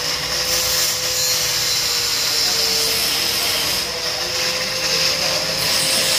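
Handheld electric power tool running steadily at full speed, its motor whine holding one pitch over a hiss of the tool working the bracket.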